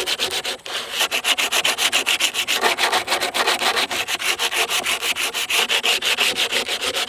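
Sandpaper rubbed by hand over a wooden board in quick back-and-forth strokes, about six a second.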